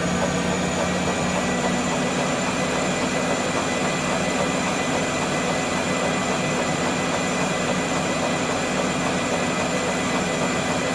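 NoblePro Elite E8i treadmill running at its top speed of 20 km/h: a steady motor hum and belt noise with a high, even whine.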